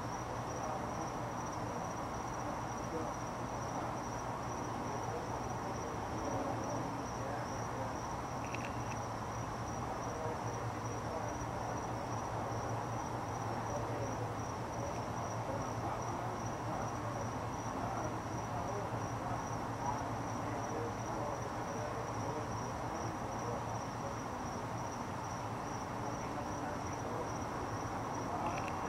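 Insect trilling steadily, a high-pitched pulsing tone, over a low steady hum and constant background noise.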